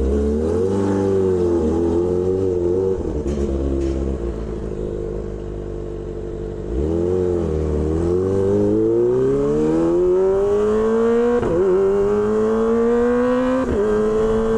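Kawasaki Ninja ZX-25R's inline-four engine through an SC-Project H2 exhaust, revving unevenly, easing off for a few seconds, then pulling away under acceleration: the pitch climbs steadily, broken by two brief dips at upshifts near the end.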